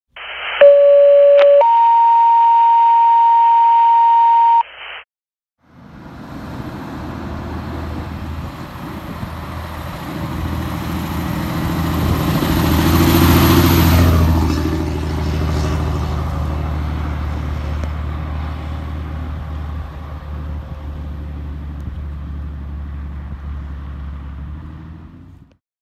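Two-tone fire pager dispatch tones heard over a radio: a short lower tone, then a longer higher tone. Then the diesel engine of a KME fire engine drives past, growing louder to a peak about halfway through and fading as it drives off up the road.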